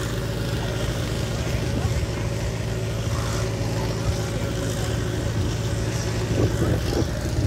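An engine running steadily, giving a low, even hum that holds one pitch throughout, with faint voices near the end.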